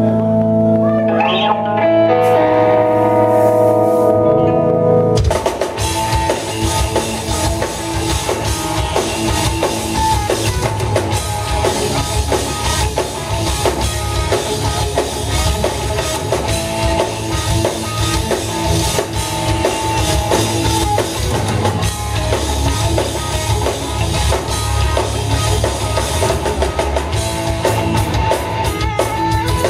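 Live instrumental rock played by a guitar, bass and drums trio: held electric guitar chords ring over the bass for about five seconds, then the drum kit comes in and the full band plays a dense, driving passage.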